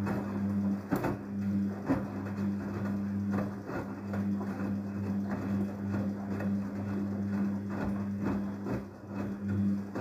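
Daewoo DWD-FT1013 front-loading washing machine tumbling a load in the wash phase. The drum motor gives a steady low hum, broken by irregular sloshing and soft thuds as wet laundry and water fall inside the drum.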